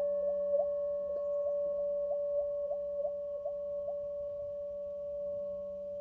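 Hand-held metal singing bowl ringing after a mallet strike: one clear steady tone with a regular wavering about three times a second that dies away, with a light second strike about a second in.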